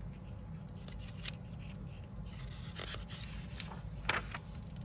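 Paper page of a paperback picture book being turned by hand: faint rustling and rubbing of paper, with a slightly louder crackle about four seconds in.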